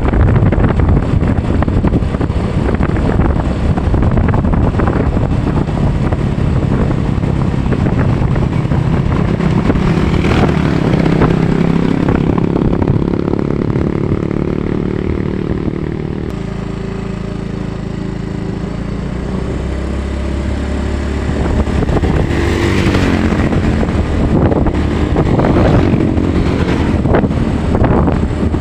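A vehicle engine running on the move, with wind noise on the microphone; the engine note changes about halfway through.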